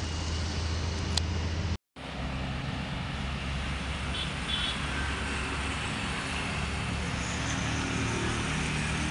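Steady background road-traffic noise with a low hum, broken by a moment of silence about two seconds in.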